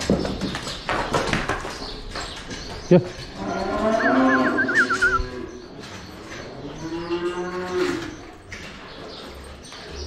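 Cows mooing twice: one long moo about three seconds in, then a shorter one a couple of seconds later. A sharp knock sounds just before the first moo.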